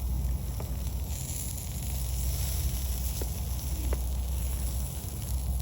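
Campfire crackling, with a few scattered sharp pops, over a steady low rumble.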